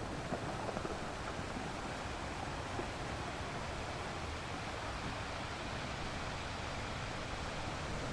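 Sea surf washing over a rocky beach: a steady rush of water noise, growing slightly louder near the end.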